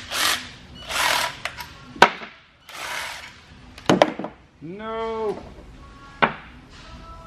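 Cordless impact driver run in three short bursts on the front-cover bolts of a Mazda 13B rotary engine, with three sharp metal clanks between them.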